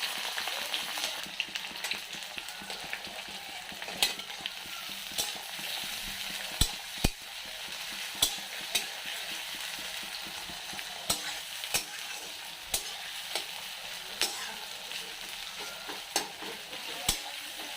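Chopped onion and green chillies sizzling in hot oil in a kerahi (wok), with a steady frying hiss and the stirring utensil knocking against the pan in irregular clicks.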